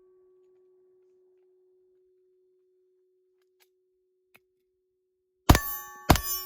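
Two 9mm pistol shots from a PSA Dagger Compact firing Winchester M1152 ammunition, about half a second apart near the end, with a third starting right at the end. Before them there is only a faint steady tone.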